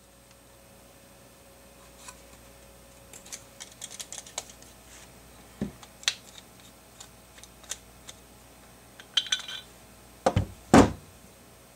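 Scattered small metallic clicks and taps from a pistol slide being worked in a rear sight pusher tool, then two louder knocks close together near the end.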